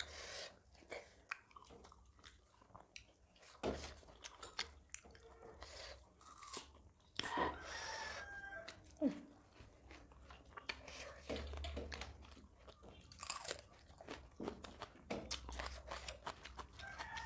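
Close-miked chewing and crunching of food eaten by hand, with many irregular wet mouth clicks and smacks.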